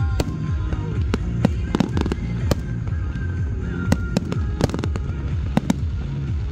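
Aerial fireworks display: a run of sharp bangs and crackles from bursting shells at irregular intervals, with a close cluster about four and a half seconds in. Music plays steadily underneath.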